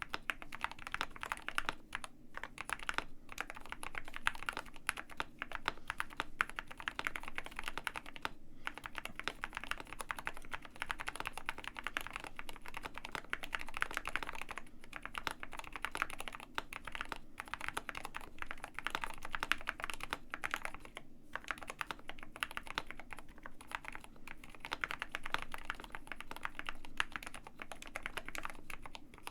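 Continuous typing on a KBD67 Lite R2 65% custom mechanical keyboard with Gateron Black Ink V2 linear switches, a rapid run of key clacks with a few short pauses.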